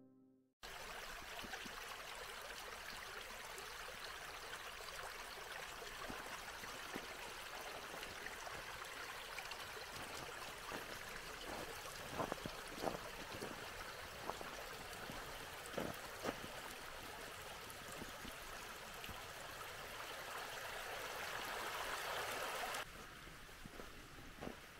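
Small brook trickling and burbling steadily between snow-covered banks, with a few sharper clicks about halfway through. It cuts off suddenly near the end, giving way to a fainter hiss.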